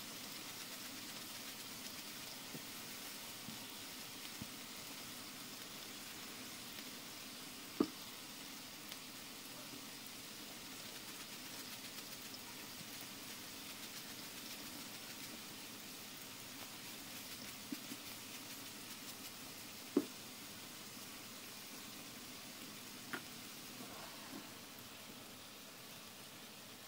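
Beef burger patties sizzling on an electric griddle: a steady frying hiss, with a few sharp clicks scattered through it.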